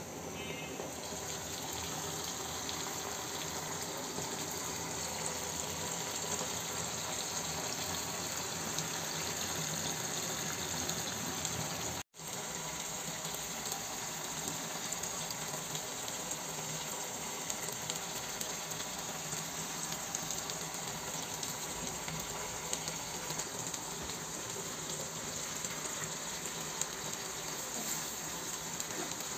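Steady sizzling and bubbling of koi fish parcels wrapped in bottle gourd leaves, cooking in oil and gravy in a pan. The sound drops out for an instant about twelve seconds in.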